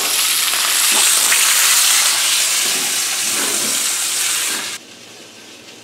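Steak sizzling in a hot cast-iron skillet, a steady frying hiss, which drops away suddenly near the end.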